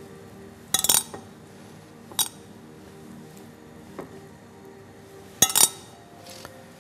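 Metal spoon and scoop clinking and scraping against ceramic dishes as hollowed-out courgette flesh is scooped and knocked off. About five sharp clinks, the loudest a double clink about five and a half seconds in.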